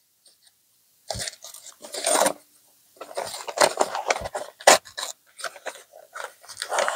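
White paper mailing envelope being torn open and handled, crinkling and tearing in two spells with a sharp crackle a little past the middle.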